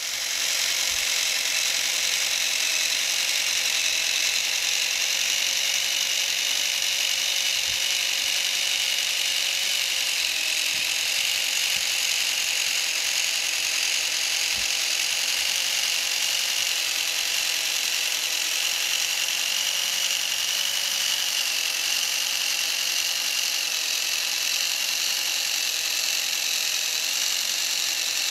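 Small electric motor driving a 3D-printed plastic gearbox and rear axle of a 1/24 scale RC car, running steadily with a high whine of motor and gears.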